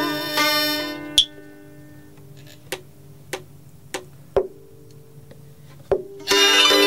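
Vietnamese đờn ca tài tử ensemble of traditional instruments (moon lute, two-string fiddle, tỳ bà lute, flute and zither). The full ensemble breaks off about a second in with a sharp click. A few sparse plucked string notes follow, one of them held. The ensemble comes back in together near the end.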